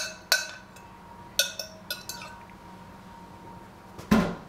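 Glass pitcher and kitchenware clinking lightly a few times with a short ring as the last of the pumpkin pie filling is poured, then a heavier knock about four seconds in, as of the pitcher being set down.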